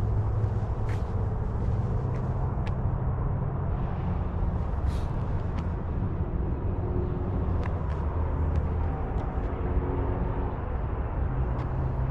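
Steady low rumble of distant road traffic, with a few light ticks on top.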